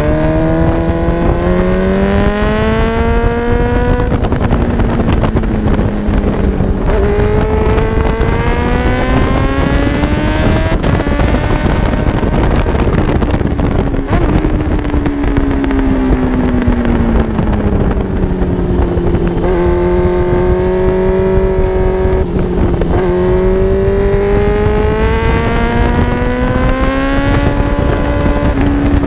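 Suzuki GSX-R750's inline-four engine pulling hard, its pitch climbing in long rises broken by sudden drops at each gear change. Midway it winds down for several seconds as the bike slows, holds briefly, then climbs again near the end. A steady rush of wind noise runs underneath.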